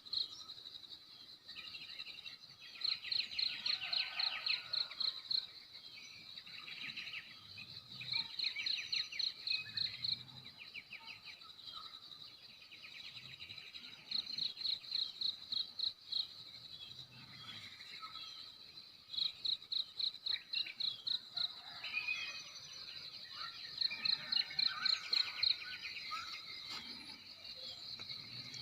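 Crickets trilling steadily, with louder bursts of rapid chirping pulses about every five seconds, and scattered wild bird calls in between.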